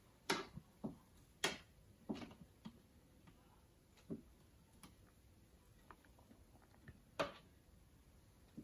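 Metal spoon clinking and scraping against a small glass dish as used tea bags are pressed and squeezed out, in irregular sharp taps, the loudest in the first two seconds and again about seven seconds in.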